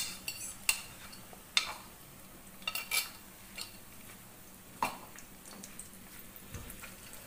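Eggs frying in hot oil in a nonstick wok: a faint sizzle with sharp clicks and pops. The pops come every half second or so at first and thin out after about five seconds.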